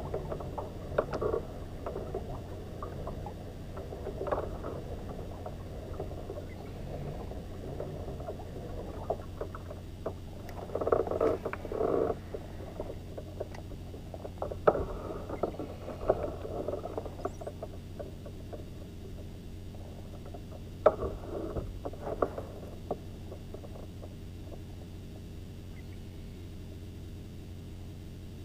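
Scattered clicks, rubs and small knocks from a spinning rod and reel being worked from a plastic fishing kayak, over a steady low hum.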